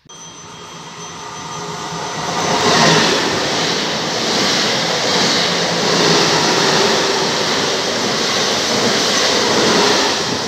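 Two coupled Alstom Coradia Stream "Pop" electric multiple units passing through a station at speed: a loud rush of wheels on rail and air, rising to its loudest about three seconds in and staying loud, with a thin steady high whine running through it.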